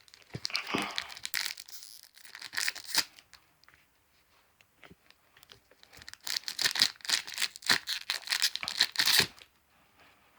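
Foil trading-card booster-pack wrapper being torn open and crinkled by hand, in two spells of rustling a few seconds apart.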